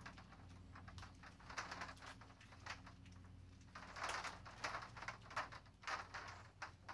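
PEX-aluminum-PEX air tubing rubbing and clicking against itself as a coil is turned and unwound by hand, in irregular faint scrapes with a longer one about four seconds in. A faint steady low hum runs underneath.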